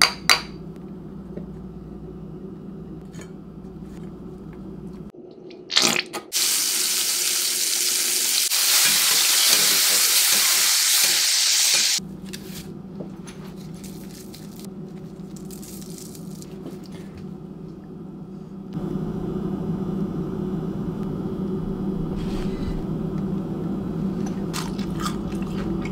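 Soft-shell crab frying in hot oil in a skillet: a loud, steady sizzle starting about six seconds in and cutting off suddenly about six seconds later. Before and after it, a steady low hum.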